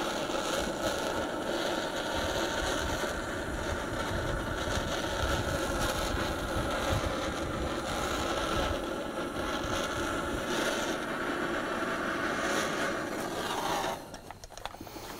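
Handheld propane torch burning with a steady hissing flame as it warms the motorcycle cush drive hub, so that the metal expands and the oil seal can be levered out. The flame stops sharply near the end.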